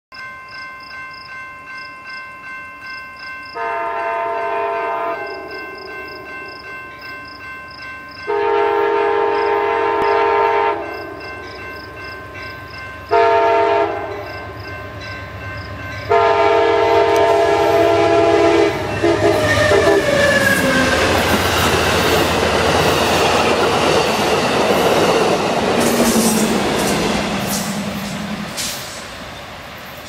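Amtrak passenger train's horn sounding two long blasts, a short one and a final long one: the grade-crossing signal. Under it a railroad crossing bell rings steadily about two to three times a second. The train then rushes past with a loud rumble of wheels on rail, the horn's last note dropping in pitch as it goes by, and the sound fades as it moves away.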